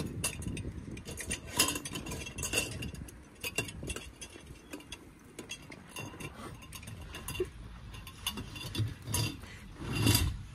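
Glass globe and metal frame of a gas lantern clinking and rattling as they are handled and fitted back together, a scatter of light knocks with a few sharper clinks.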